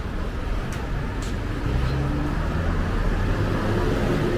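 Street traffic: a steady low rumble of motor vehicles with an engine hum that grows a little louder about a second and a half in.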